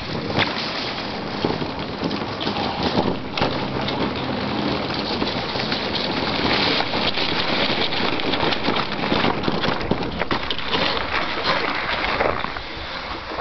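Sled runners sliding over snow and ice, a steady scraping hiss thick with small crackles.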